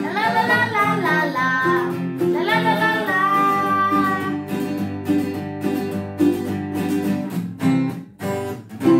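A child singing over a strummed acoustic guitar and ukulele. The voice stops about halfway through, and the strumming carries on alone to a last strum at the very end.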